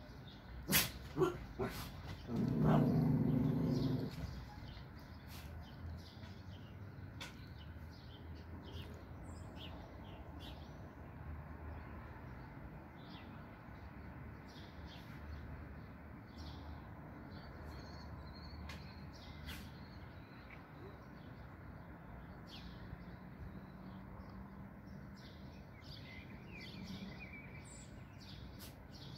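A dog barks a few times near the start, then gives one louder, longer call of about two seconds. After that comes a faint outdoor background with scattered short bird chirps.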